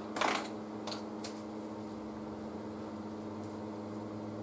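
Steady low hum, with a brief rustle of hands handling things over the workbench about a quarter second in and a couple of faint clicks around a second in.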